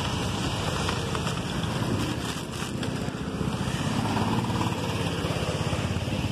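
Wind rumbling on the microphone and road noise from riding a bicycle along a wet road, with cars driving alongside. The rumble is steady throughout.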